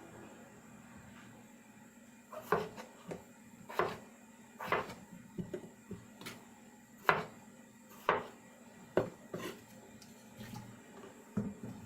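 Dishes and kitchen utensils being handled: about a dozen separate clinks and knocks at an irregular pace, starting about two seconds in.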